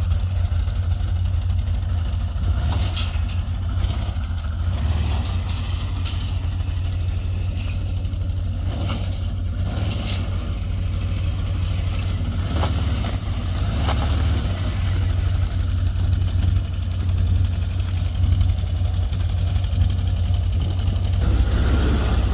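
Can-Am off-road side-by-side's engine idling steadily with a low, even hum, a few light knocks here and there over it.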